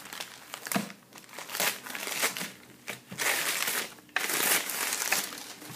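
Newspaper packing crumpling and rustling in irregular bursts as it is pulled off a fingerboard rail, the longest stretch in the second half.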